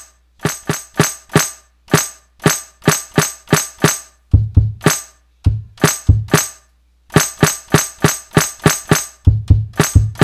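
Snare drum sample played over and over from the Maschine controller's pads, about two to three hits a second, through a high-pass filter while the cutoff is turned, so the hits sound thin and bright. Three short runs of hits carry a deeper thud.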